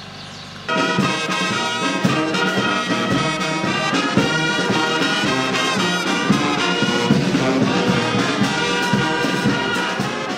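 Brass band of trombones and trumpets playing a tune together, starting abruptly about a second in.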